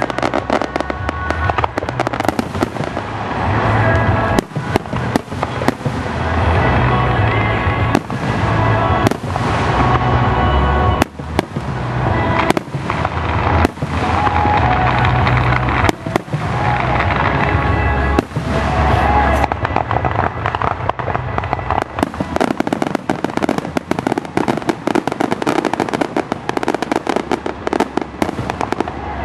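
Fireworks display: aerial shells bursting one after another, many bangs in quick succession. From about three-quarters of the way through comes a dense crackling.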